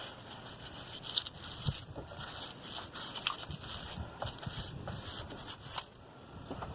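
Brass wire brush scrubbing a metal engine part in quick back-and-forth strokes, a scratchy rasping that stops about six seconds in.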